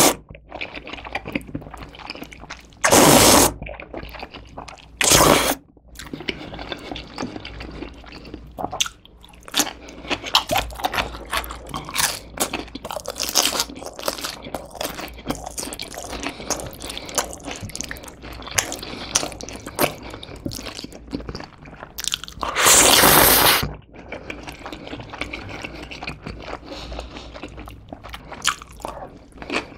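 Close-miked eating of jajangmyeon: noodles in black bean sauce slurped loudly in short bursts, about three seconds in, again two seconds later, and once more after twenty seconds. Between the slurps there is crunchy, wet chewing with many small clicks.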